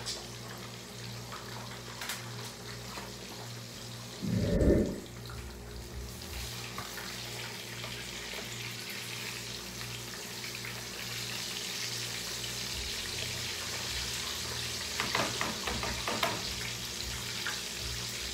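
Tilapia fillets frying in hot oil in a pan, a steady sizzle that grows louder about six seconds in. A brief low thump comes at about four and a half seconds, and metal tongs click against the pan near the end.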